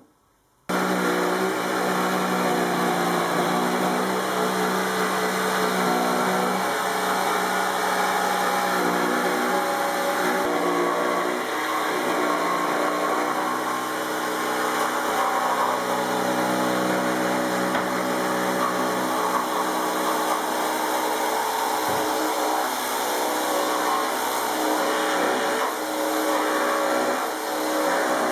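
Jigsaw sawing through a thick wooden board along a pencilled paddle outline. Its motor starts abruptly, then runs steadily, the note shifting a few times as it cuts.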